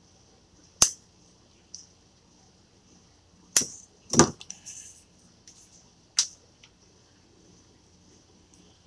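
Metal shears snipping through a leather cord with sharp clicks, and light metallic clicks as the shears are handled and set down on the bench. There are four or five separate snaps, the loudest about four seconds in.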